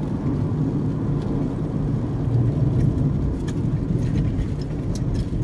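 Steady engine and road noise of a moving car heard from inside the cabin, a low even drone, with a few faint clicks.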